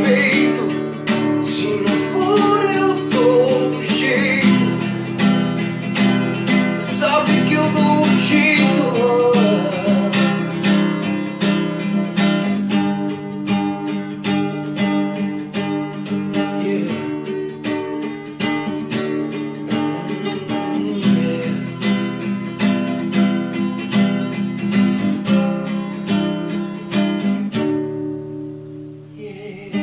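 Nylon-string classical guitar strummed in a steady rhythm, with a voice singing over the first several seconds. Near the end the strumming stops and the last chord rings out and fades.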